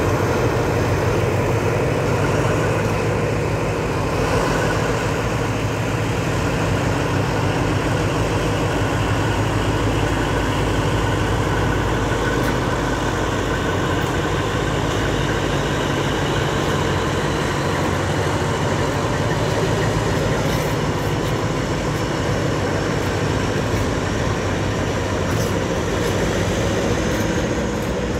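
Freight train pulled by two TCDD DE 24000 diesel-electric locomotives, the engines' steady low drone carrying on as the loaded wagons roll past close by.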